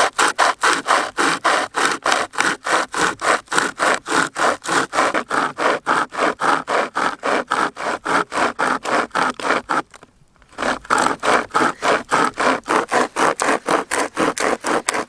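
Bushstar hand chainsaw, its carbon-steel chain pulled back and forth through a log, sawing in fast, even strokes of about four a second. It pauses briefly about ten seconds in and then carries on.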